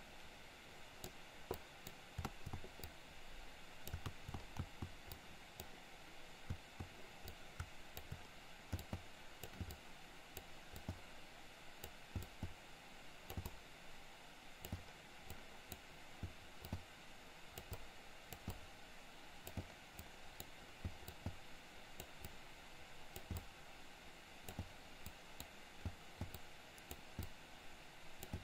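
Faint, irregular clicks of a computer mouse and keyboard, several a second at times, over a low steady hiss of room noise.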